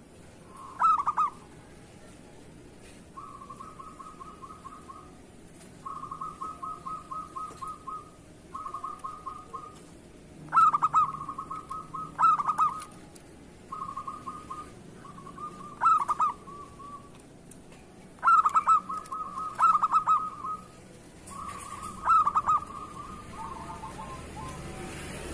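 Zebra dove (perkutut) cooing: repeated phrases of quick rippling trills held on one pitch, broken by several louder, sharper notes.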